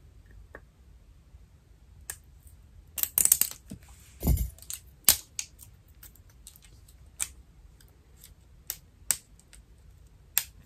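Fingernails picking and scratching at the plastic wrap on a body-spray bottle: scattered sharp clicks and crinkles at irregular intervals, with one duller knock about four seconds in.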